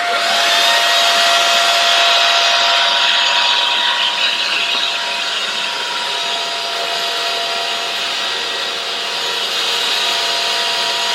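Jashen V16 cordless stick vacuum switched on, its motor spinning up in the first moment to a steady high whine over a rushing hiss of air, as it is run over spilled flour.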